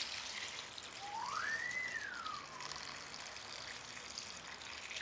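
Water poured in a steady trickling stream into a stainless steel bowl of herb leaves and water. About a second in, a single whistle-like tone rises and then falls.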